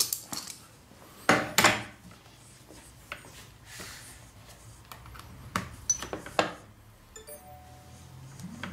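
Knocks and clicks of a phone and its charging cable being handled and set down on a wooden desk. Two loud knocks come about a second and a half in, and lighter clicks follow a few seconds later. A few short electronic beeps sound near the end.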